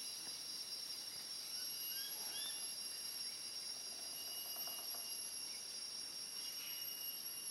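Steady high-pitched shrill drone of insects, with a few short rising bird chirps about two seconds in and a brief rapid run of faint taps around four to five seconds in.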